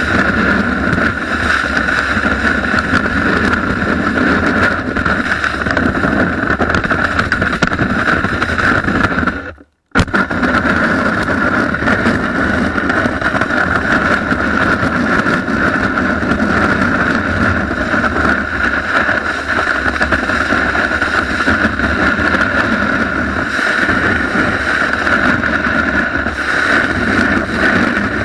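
Steady rushing of a snowboard sliding over snow, with wind on a camera mounted on the board's nose. The sound drops out briefly about ten seconds in.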